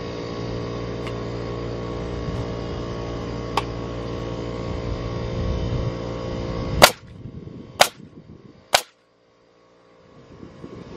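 Pneumatic nail gun firing three times, about a second apart, driving fasteners into the wooden frame. Each shot is a sharp crack over a steady hum that drops away at the first shot.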